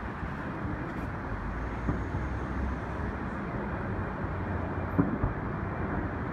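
Distant firework shells bursting as dull bangs, the sharpest about five seconds in, over a steady low rumble of wind and city noise.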